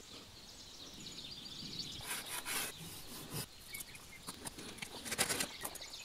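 Faint rubbing and scraping of weathered pallet wood, with grass and roots being pulled from between its slats, in a few short scrapes. A bird chirps faintly now and then.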